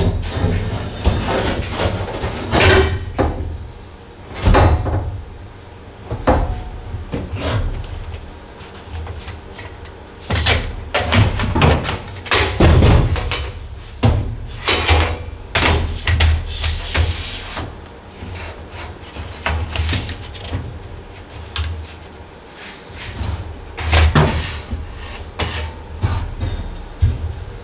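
Steel roll cage tubes from a Wolfe Racecraft 25.5 cage kit knocking and scraping against the rest of the cage and the car's bare metal body as they are fitted, a string of irregular clanks and thumps.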